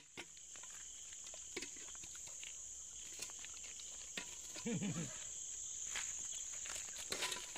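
Night insects chirring steadily at a high pitch, with scattered light clicks and taps, and a brief low murmur of a voice about two-thirds of the way in.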